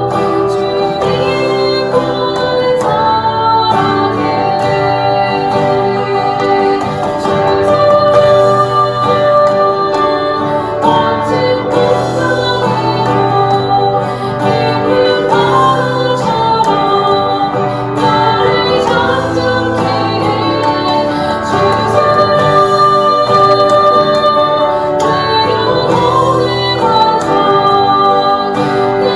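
A woman singing a slow Korean Catholic hymn, accompanied by keyboard, guitar and drums.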